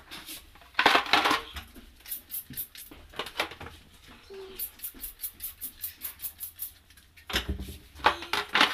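Clatter and knocks of a plastic toilet seat and lid being handled. In the middle comes a quick run of short hissing squirts from a trigger spray bottle of toilet cleaner.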